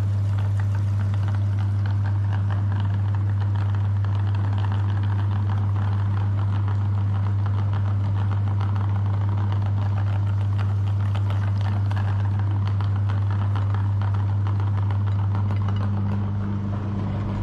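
Electric meat grinder motor running steadily with a loud, even hum and a light crackle over it, easing slightly near the end.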